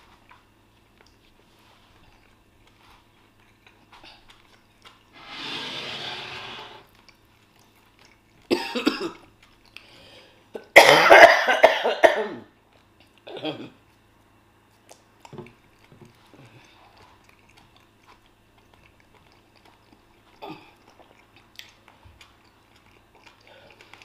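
A woman coughing in several separate bouts, the loudest about eleven seconds in and lasting a second or two, with quiet gaps between. The coughing is put on for a prank.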